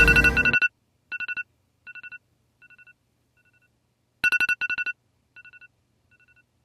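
Electronic phone alarm tone: two bursts of rapid beeps on two pitches, each burst followed by echoing repeats that fade away.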